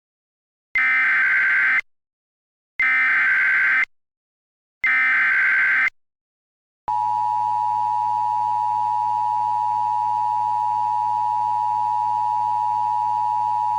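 Emergency Alert System alert tones: three bursts of SAME header data, about a second each and a second apart, then from about seven seconds in the steady two-tone EAS attention signal, held without a break.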